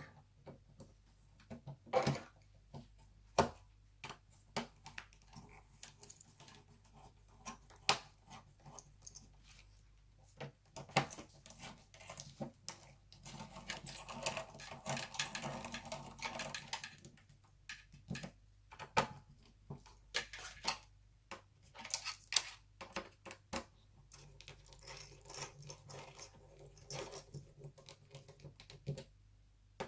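Scattered clicks, taps and light knocks of small metal and plastic parts being handled as a laptop CPU heatsink is fitted back onto the motherboard, with a stretch of scraping and rustling about halfway.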